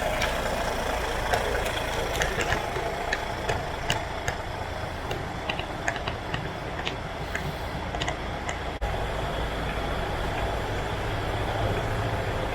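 Diesel truck engine idling steadily, the DAF XF105's Paccar MX 460 six-cylinder, with scattered sharp clicks over the rumble during the first two-thirds. The sound breaks off abruptly about nine seconds in and picks up again.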